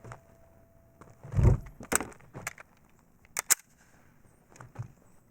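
Handling noises from a pistol and its magazine: a dull thump about a second and a half in, then a few sharp clicks, two of them close together.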